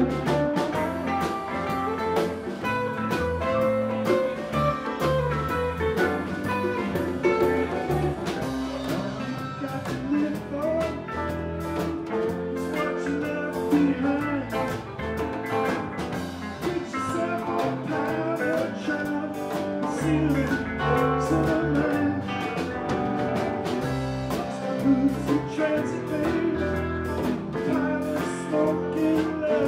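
Live band playing: a guitar carrying the tune over a bass line and a steady drum beat.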